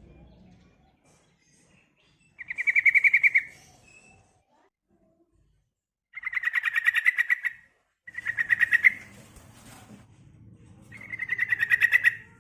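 Female yellow-vented bulbul (trucukan) calling: four bursts of rapid, evenly pulsed chattering trills, each about a second long with pauses between, a call used as a lure to draw males into song.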